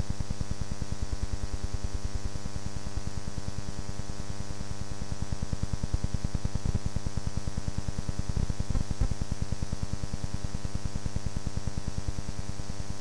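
Steady electrical mains hum and buzz with a rapid, regular pulsing, with no engines or voices standing out.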